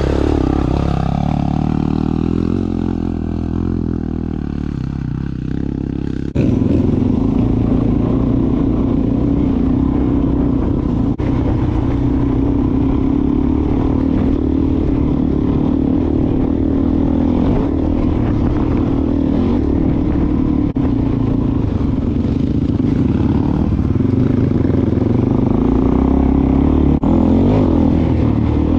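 Dirt bike engine running under way on a rough trail, heard close up from a camera on the bike. Near the start another dirt bike passes close alongside, its engine note sliding in pitch; about six seconds in there is an abrupt jump to a louder, steady engine note.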